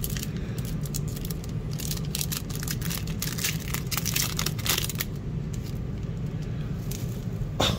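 A foil trading-card pack (Panini Fortnite Series 3) is torn open, then crinkled and crackled as the cards are pulled out, over a steady low hum. The crinkling is thick for the first five seconds or so, then thins out.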